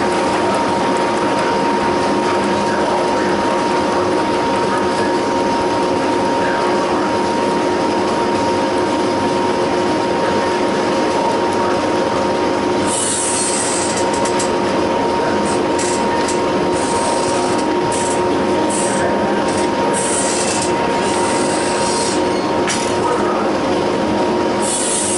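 Bolliger & Mabillard roller coaster train being pulled up a chain lift hill: a loud, steady mechanical drone with a constant hum from the lift. Brief hissy bursts come and go from about halfway through.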